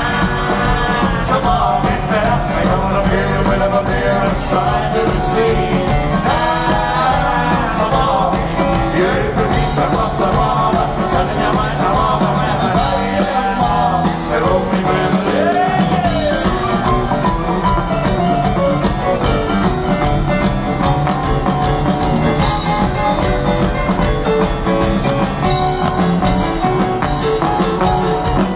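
Live rock and roll band performance, with a lead vocal sung over piano, bass and drums.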